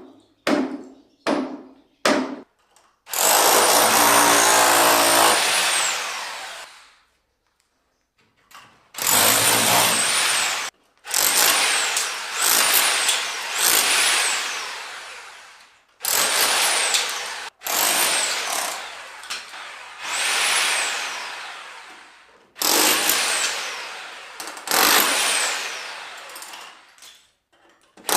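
Electric power tool run in repeated bursts of a few seconds. Its motor whines up to speed and then winds down each time, with a few sharp knocks before the first burst.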